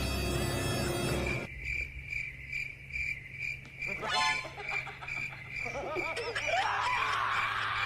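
Cricket chirping: a steady high chirp repeating about twice a second, starting as music cuts off about a second and a half in.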